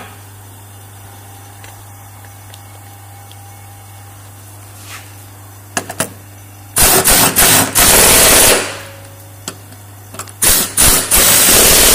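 Impact wrench hammering in two loud bursts, the first lasting about two seconds and the second about a second and a half, each led by a couple of short blips. It is running up and tightening the mounting bolts of a newly fitted rear lower arm (consul) bush on a Mk5 VW Golf.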